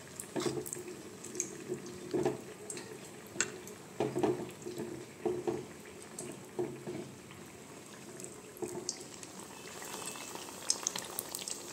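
Wet squelching and scraping of a spoon and fingers working thick batter around a boiled egg half in a clay bowl, in irregular short bursts. Near the end the battered egg goes into hot oil, which starts to sizzle and crackle.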